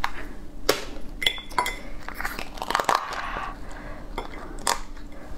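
Raw soy-marinated crab being pried apart by hand: several sharp cracks and clicks of the shell and legs breaking, the loudest near the end.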